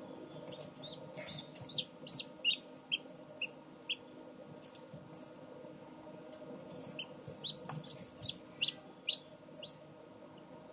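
Young chicks peeping in short, high, squeaky calls, in two bunches of about a dozen peeps, over the steady hum of an egg incubator's fan.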